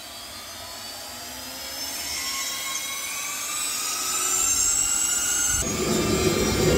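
A bank of seven jet engines on a car spooling up at start-up, several whines rising in pitch together as the sound grows steadily louder. About five and a half seconds in, a deeper rushing roar comes in suddenly.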